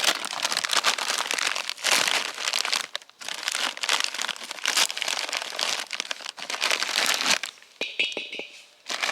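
Wrapping material crumpled and crinkled by hand close to the microphone, in irregular runs with brief pauses, as food is prepared for cooking.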